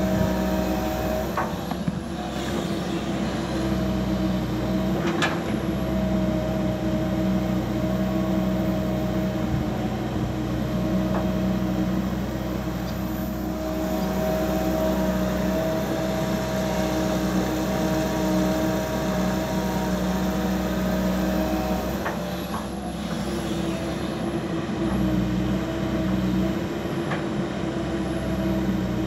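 Komatsu PC200LC crawler excavator's diesel engine running steadily under hydraulic load, with a steady whine over it as the machine digs, swings and dumps soil. A few sharp knocks stand out at several moments.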